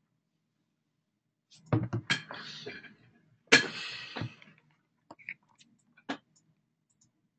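Two clusters of sharp knocks and clatter, about two seconds and three and a half seconds in, each trailing off briefly, then a few faint clicks.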